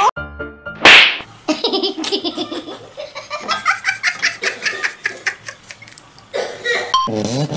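Rapid pulsing laughter, several bursts a second, running on for several seconds, after a short loud burst of noise about a second in.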